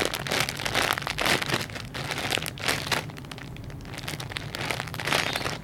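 Thin plastic packaging crinkling and rustling in quick irregular crackles as squishy toys are handled.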